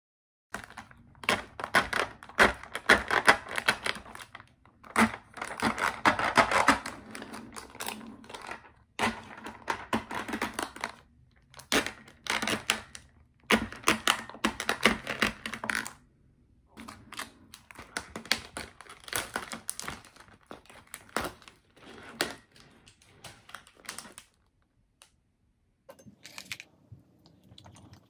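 Close handling sounds: rapid taps and clicks mixed with rustling, in bursts of a second or more with short pauses, quieter in the second half.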